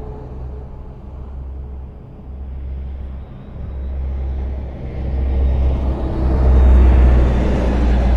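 Highway traffic: a steady deep rumble of passing vehicles that swells as a vehicle approaches and goes by close, loudest near the end.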